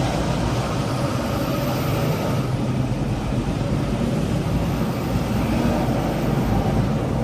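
Steady freeway traffic noise: a low engine hum with vehicles passing close by now and then.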